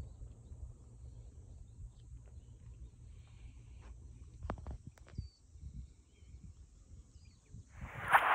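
Outdoor waterside ambience: a low wind rumble on the microphone with a few faint bird chirps and a couple of sharp clicks about halfway through. A loud rushing noise sets in near the end.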